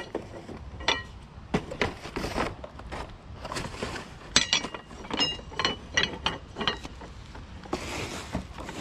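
Metal rods and scrap knocking and clinking together as they are handled and moved about: a string of sharp clinks, several near the middle with a short metallic ring.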